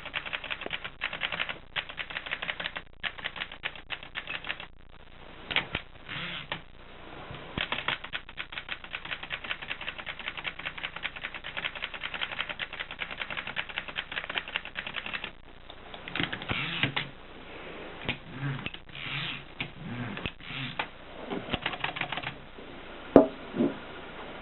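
Adler 7 manual typewriter being typed on: quick runs of key strikes clacking for about fifteen seconds with short pauses, then slower, heavier mechanical noises from the machine, and one sharp loud clack near the end.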